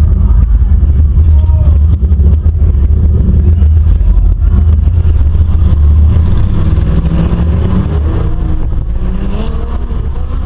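Loud, low rumble of race car engines running, easing off gradually over the last few seconds.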